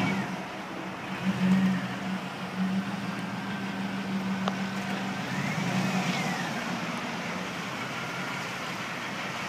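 A 2005 Chevrolet Silverado 1500 pickup's engine running as the truck rolls forward slowly, its hum swelling briefly twice, with a single click about halfway through.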